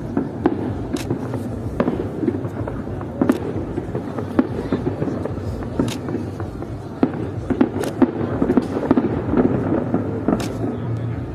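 Fireworks display: sharp bangs of bursting shells, irregular at about two a second, over a continuous rumble.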